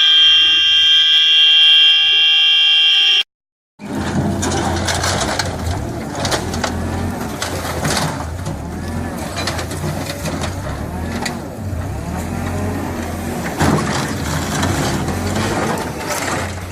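A loud, steady horn-like tone holds for about three seconds and cuts off suddenly. After a brief silence, a heavy machine's engine runs with a steady low hum and scattered knocks and clatter.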